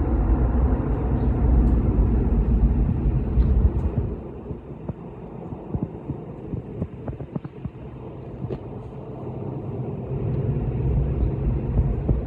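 Low rumble of a jet airliner's engines, loud for the first few seconds, then fading away, before a low rumble builds again near the end.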